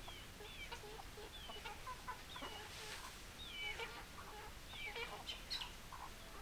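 Several chickens clucking and calling, with many short, overlapping calls.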